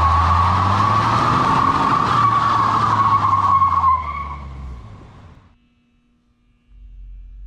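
Car tyres squealing over a running engine: a loud, steady squeal that fades out over about a second and a half, starting about four seconds in. A faint low hum follows near the end.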